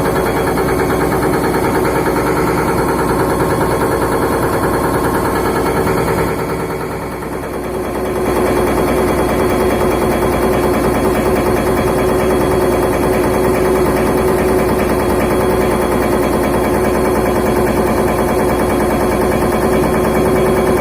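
Excavator breaking large rock with its engine running hard and a rapid, continuous hammering. It eases off briefly about six seconds in and resumes about two seconds later.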